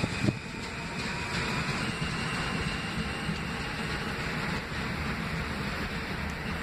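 Subway train moving away along the track, a steady low rumble with the open-air hiss of the station, and a short click just after the start.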